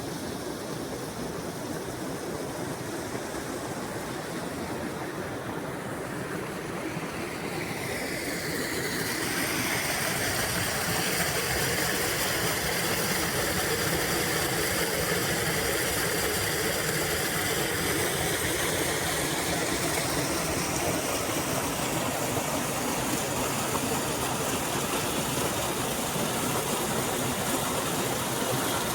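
Steady rushing and babbling of a small forest stream, growing a little louder about nine seconds in and then holding steady.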